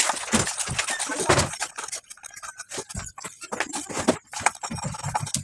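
Screwdriver working the screws of an active speaker's metal amplifier back panel, a run of irregular clicks, scrapes and rattles.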